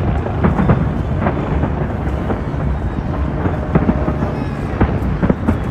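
Fireworks exploding in quick succession: a continuous low rumble of booms with many sharp bangs and crackles at irregular intervals.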